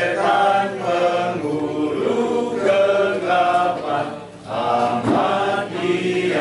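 A small group singing a hymn together without accompaniment, in sustained phrases, with a short pause for breath a little past four seconds in.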